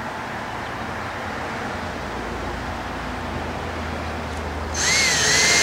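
Steady background hiss, then near the end an electric drill's motor starts with a loud, high whine that rises a little and holds.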